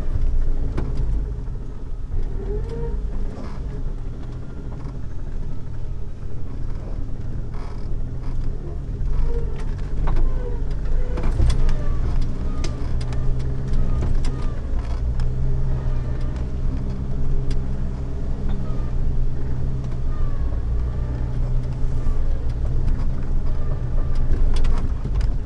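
Jeep Wrangler TJ engine running steadily at low speed while crawling along an off-road trail, with scattered clicks and knocks.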